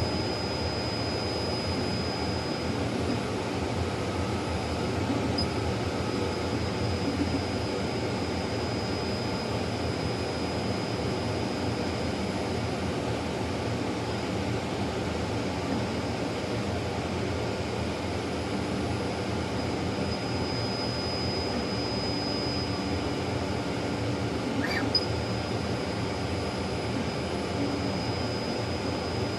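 Laser printer running as it prints: a steady mechanical whir of motor and rollers with a thin high whine on top, and one short click near the end.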